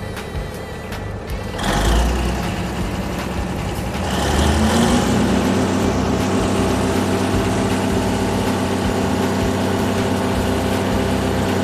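A motor vehicle's engine: a loud surge about two seconds in, a rise in pitch around four seconds, then running steadily at one pitch until it drops off at the end.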